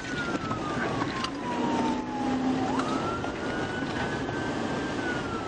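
Police car siren wailing over steady road and engine noise. Its pitch slides slowly down, jumps back up about two and a half seconds in, and starts falling again near the end.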